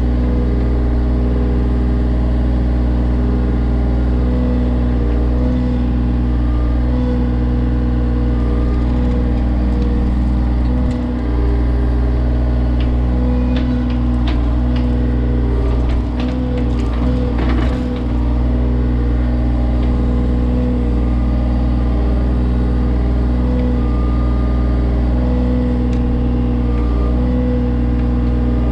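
John Deere 35G mini excavator's diesel engine running steadily under working load, its pitch dipping and recovering a little as the hydraulics are worked. A cluster of knocks and scrapes comes about halfway through.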